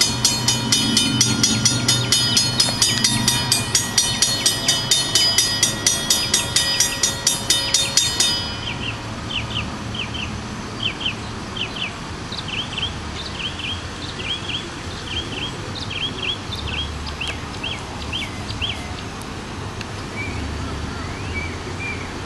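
Railroad crossing signal bells ringing rapidly, about four strikes a second, then cutting off suddenly about eight seconds in. A run of short high chirps follows over a low steady rumble.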